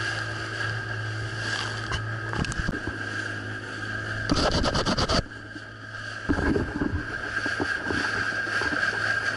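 A small open boat's motor running steadily at speed, with water rushing past the hull and wind on the microphone. About four seconds in there is a loud rush of noise for about a second, and then a few knocks.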